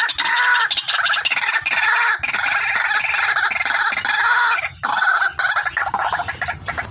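Female white-breasted waterhen (ruak-ruak) calling, a lure call: a dense, fast run of repeated notes, broken by two short gaps a little past the middle.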